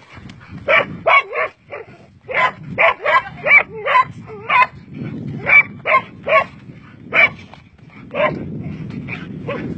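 A dog barking repeatedly at a snake: short, high barks in quick runs, thickest from a little after two seconds in to about five seconds, then more spaced out.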